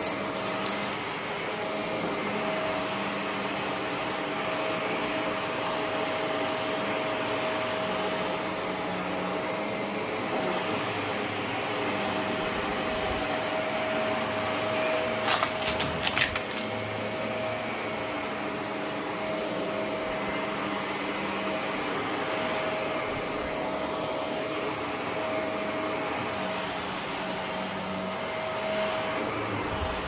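Upright bagless vacuum cleaner running steadily with a constant motor whine as it is pushed across a plush rug. About halfway through there is a quick burst of sharp clicks.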